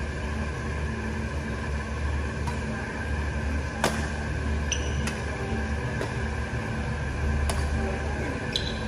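Badminton rally: about five sharp racquet hits on the shuttlecock, a second or two apart, with short squeaks of shoes on the court floor. Under it runs a steady low mechanical hum.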